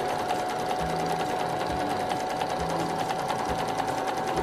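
Electric household sewing machine running at a steady speed, stitching through folded denim: an even motor whine with rapid, regular needle strokes.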